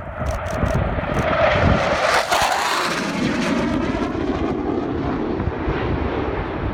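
Panavia Tornado jet's two RB199 turbofans passing: a rushing jet noise builds to its loudest about two and a half seconds in, then falls away with a dropping pitch as it recedes.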